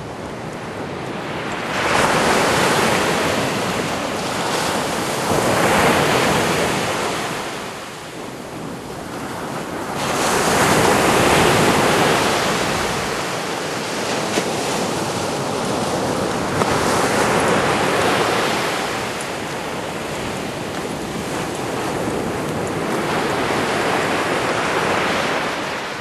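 Small waves breaking and washing up a sandy beach. Surges of surf come every few seconds, the biggest starting suddenly about two seconds and about ten seconds in.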